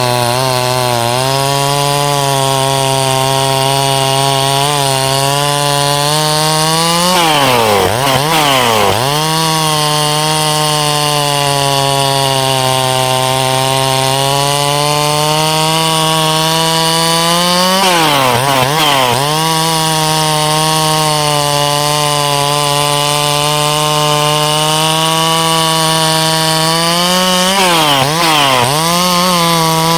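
Large two-stroke chainsaw running hard through ponderosa pine, cutting rounds from a log. Its steady pitch under load swings up and then dips about three times, as one cut ends and the next begins.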